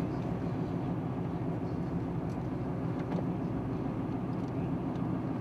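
Steady running noise of a moving car, engine and road rumble, heard from inside the cabin.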